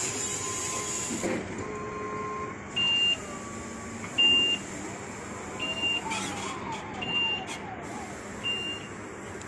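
Small battery-electric wheel loader at work, its electric drive giving a whine that holds and then shifts in pitch. Over it, a short electronic warning beep sounds five times, about every second and a half; the first two beeps are the loudest.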